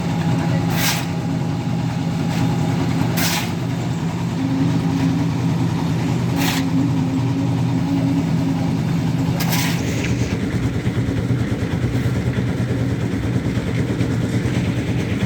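An engine running steadily, its tone shifting slightly about ten seconds in. A short rushing noise cuts across it four times, about every three seconds.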